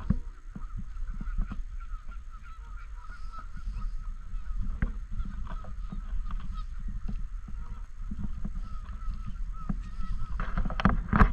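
A flock of Canada geese honking, many short calls overlapping without a break, with a louder burst of honks near the end.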